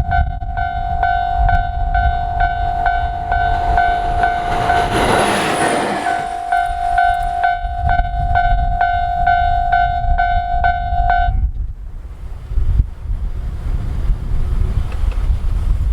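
Level-crossing warning bell ringing with a rapid, even ding that stops suddenly about eleven seconds in. Over it a JR Hokkaido H100 (DECMO) diesel-electric railcar passes, its rush loudest about five seconds in, over a low rumble throughout.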